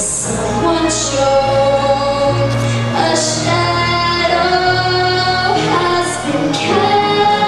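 A female voice singing a musical-theatre song over instrumental accompaniment. The sung notes are long and held, and steady bass notes move underneath.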